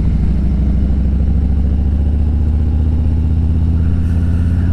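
Motorcycle engine running at a steady speed, heard from on the bike, with its low, even firing pulse.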